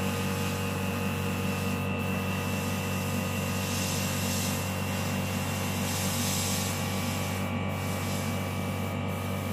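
Airbrush compressor running with a steady hum, with the airbrush's spray hiss swelling twice, about four and six seconds in.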